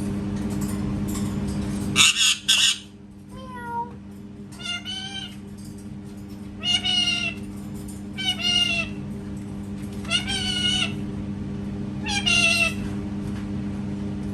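Parrot imitating a cat: a short harsh double call, then a string of about six meows, one every one and a half to two seconds.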